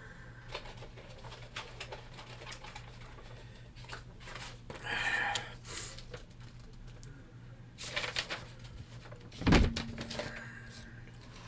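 Handling of firework initiators: scattered light clicks and a short rustle about five seconds in, then one loud thump near ten seconds in, over a steady low hum.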